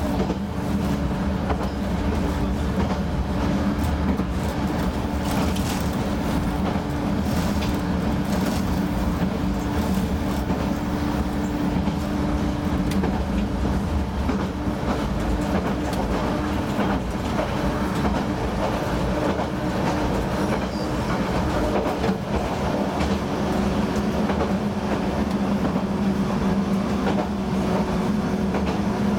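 Diesel railcar engine idling with the train standing still: a steady hum with a constant low tone, one of its tones stepping up slightly a little over twenty seconds in.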